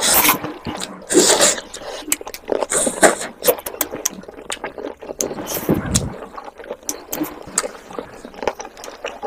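Close-miked eating sounds: fingers squishing rice and chicken curry gravy on a plate, with wet chewing and lip-smacking clicks.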